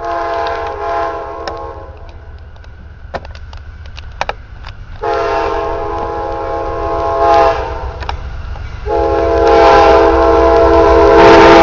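Locomotive air horn sounding long blasts over the low rumble of a train. The first blast is already sounding and stops about two seconds in, and the next two start about five and nine seconds in, the last running on past the end. A few sharp clicks fall in the gap between the first two blasts.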